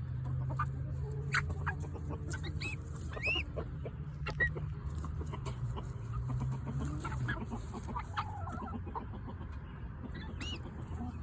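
Adolescent chick making many short soft clucks and chirps, with a few rising peeps, over a steady low hum.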